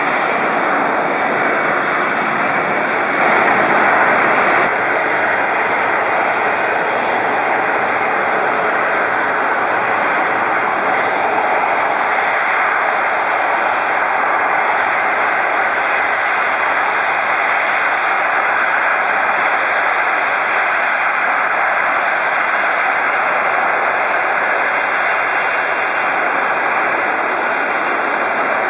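Boeing 747-400's four Rolls-Royce RB211 turbofans running as the jet taxis close by: a steady jet rush that swells slightly about three seconds in.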